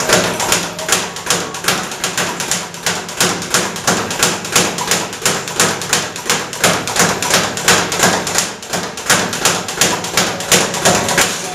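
Speed bag being punched in a fast, steady rhythm: the leather bag rebounding off its platform in a long run of sharp knocks, several a second.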